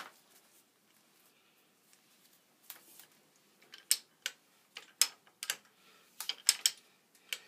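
Hand spiral pipe reamer on a ratchet handle being worked into the end of black iron pipe: irregular clicks and scrapes, starting about two and a half seconds in, as the ratchet is swung and the cutter bites the metal.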